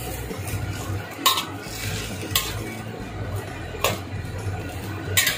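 A spatula stirring and scraping white broccoli around a wok as it stir-fries, with four sharp clinks against the pan at uneven intervals over a low steady hum.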